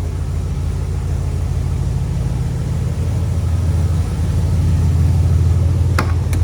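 1966 Chevy Impala SS's 327 V8 running at low speed, its low exhaust note growing louder about halfway through. A sharp click near the end.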